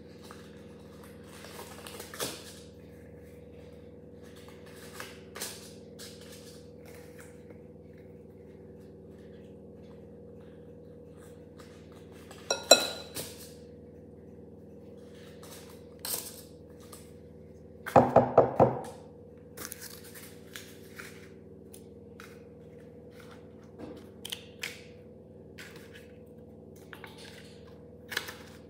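Silicone spatula scraping cake batter off an electric hand mixer's wire beaters: scattered soft scrapes and small clicks over a faint steady hum. A metallic clink rings out about halfway through, and a quick run of four or five knocks, the loudest sounds, comes about two-thirds of the way in.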